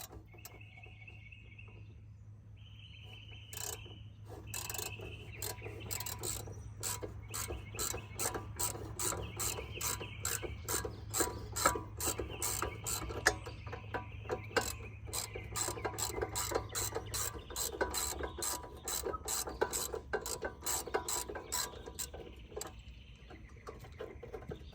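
Socket ratchet clicking repeatedly as it is worked back and forth to loosen the top caliper bracket bolt on a car's rear brake; the clicks come in a steady run and get louder a few seconds in.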